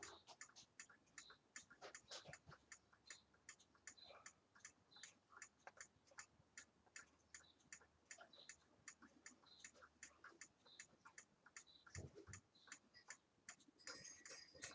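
Faint, steady ticking of a clock, about four ticks a second, with a single dull knock about twelve seconds in.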